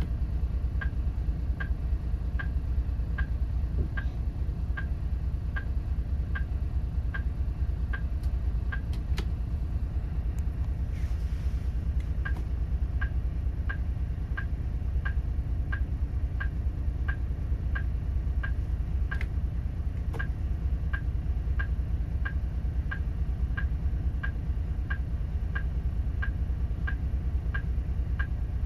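Hino Selega tour bus's turn-signal and hazard flasher ticking steadily, about two ticks a second, over the low rumble of its diesel engine idling. The ticking stops for about two seconds near the middle, then carries on.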